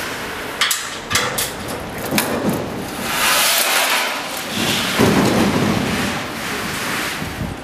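Handling noise from work at a lift landing-door sill: a few sharp clicks and knocks about a second in, then two longer rushing, scraping noises.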